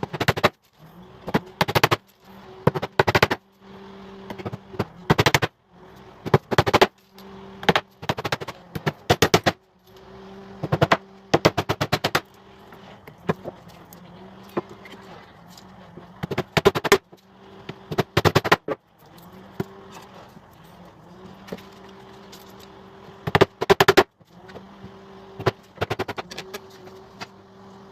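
Hammer driving small headless nails into pallet-wood slats: repeated groups of several quick, sharp blows, one group every second or two, with short pauses between nails.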